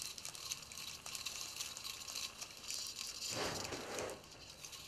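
Fly reel being wound by hand, taking up fly line: a rapid fine clicking from the reel's check with line rustling onto the spool, and a brief duller handling rub a little past three seconds in.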